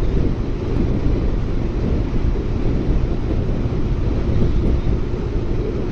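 Steady wind rush on the microphone of a motorcycle rider at road speed, mixed with the running of a Honda Fireblade 900's inline-four engine, heard as a dense, even rumble.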